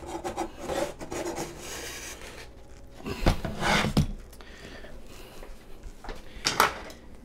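Wooden pizza peels scraping and rubbing against a ceramic pizza stone and the crust as a cooked pizza is worked off the stone, with a few sharper wooden knocks and clatters.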